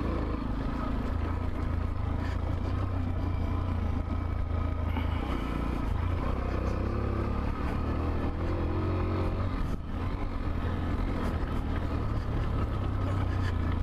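Macbor Montana XR1 125cc trail motorcycle's single-cylinder four-stroke engine running as it is ridden around a motocross track, holding a fairly steady pitch with a brief dip about ten seconds in.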